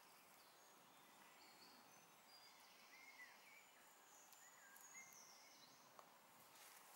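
Near silence: faint woodland ambience with a few short, high bird chirps in the middle seconds and a single small click near the end.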